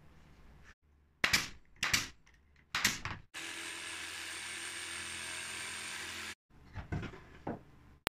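A few sharp wooden knocks as plywood panels are handled and fitted together, then a jigsaw cutting through MDF board for about three seconds, starting and stopping abruptly, followed by a couple of softer knocks.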